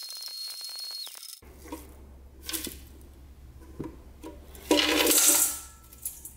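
A blender motor whines at high speed with ground circuit-board fragments rattling in the jar, then stops about a second in as it is switched off. A few light clinks follow as the plastic jar is lifted off the base. Near the end comes the loudest sound, a gritty rattling rush of pulverized circuit-board powder pouring from the jar into a stainless steel bowl.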